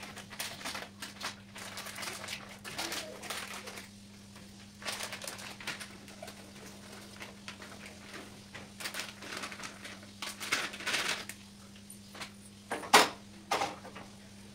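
Plastic food packet crinkling and rustling in the hands as it is opened and emptied into an aluminium pressure cooker, with a single sharp clank near the end.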